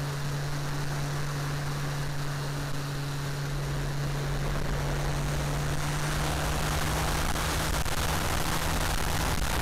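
An RC T-28's E-flite Power 10 electric motor and three-blade propeller humming steadily at one pitch, picked up by a camera on the wing. Rushing air on the microphone grows louder from about halfway through as the plane noses down into a dive.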